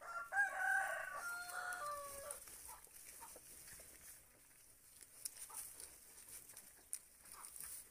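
A rooster crows once, a drawn-out call that falls slightly at its end, in the first two seconds, followed by a few faint short calls.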